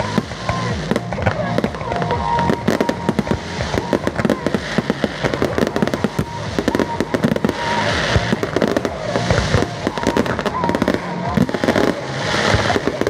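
Fireworks display going off continuously: a dense stream of shell bursts, bangs and crackling, with louder crackling showers about eight and twelve seconds in. Music plays along underneath.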